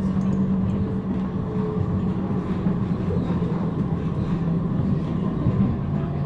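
Passenger train running: a steady rumble with a low, even hum.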